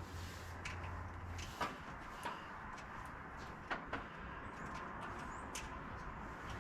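Scattered light clicks and taps, about six in all, of hand work on the Jeep's body and top brackets, over a faint low hum that stops about a second and a half in.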